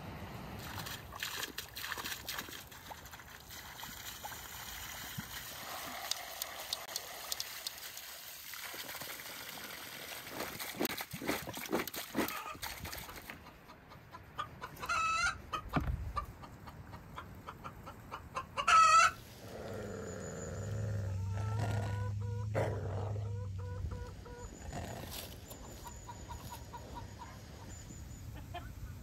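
Free-range chickens: two loud, short, wavering calls near the middle, with quieter clucking later. The first half holds many small light clicks, and a steady low hum runs for a few seconds after the calls.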